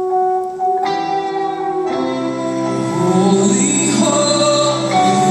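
Live church music beginning a song: held chords from an orchestra and acoustic guitar change about a second in, lower notes join shortly after, and the music fills out with singing.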